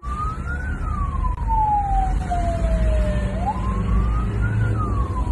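A siren wailing, its pitch climbing quickly and then sliding slowly down, twice, over a loud low rumble from the car being driven.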